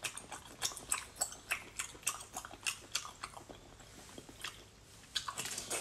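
Close-up wet chewing of spicy braised octopus: irregular sticky mouth clicks and smacks, a few a second.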